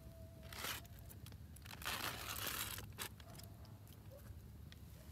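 Aluminium foil of a Jiffy Pop pan crinkling and tearing as it is opened: a short rip about half a second in, then a longer crackly tear of about a second.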